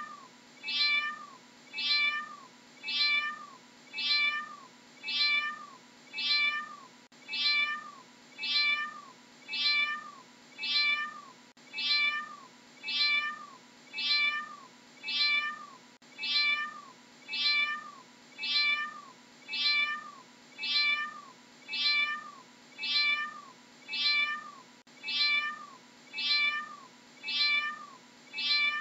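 Domestic cat meowing: short meows repeated over and over at an even pace, each one rising and then falling in pitch.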